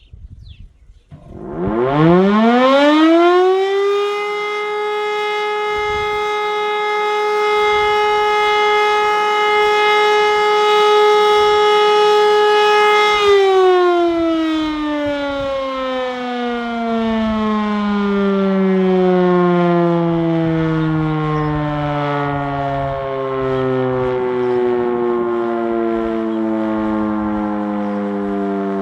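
Siemens E57 electromechanical civil-defence siren sounding its weekly test alarm. It starts about a second in, its pitch rising quickly to one steady tone held for about ten seconds. It then winds down in a long falling tone as the rotor slows, still sounding at the end.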